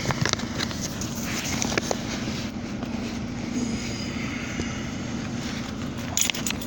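Car engine running steadily with a low, even hum. A few short clicks come about six seconds in.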